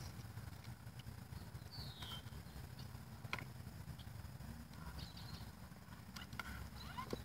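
Electric RC rock crawler (Vaterra Twin Hammers) inching over river stones, with a few sharp knocks of tyres and chassis against rock over a low steady rumble.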